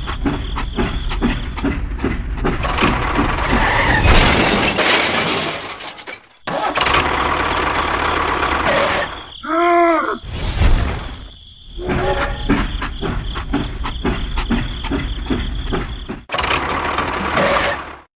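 An engine running with a rapid, even knocking beat, cut off abruptly twice. About ten seconds in, a short tone rises and then falls in pitch.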